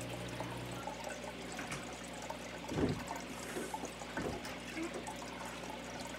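Steady room noise, a hiss over a low hum, with two soft bumps about three and four seconds in.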